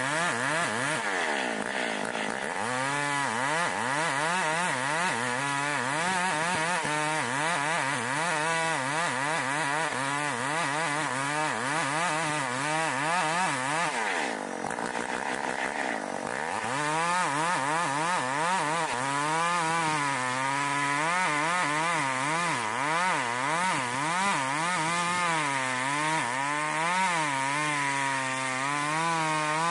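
Chinese-made Stihl 070 clone, a two-stroke chainsaw with a blunt chain, ripping lengthwise through an ironwood (ulin) log; the engine note wavers up and down under load. About halfway through the engine eases off and drops in pitch for a couple of seconds, then revs back up into the cut.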